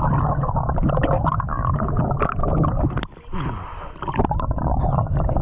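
Wind rumbling and buffeting on the microphone, easing briefly about three seconds in before picking up again.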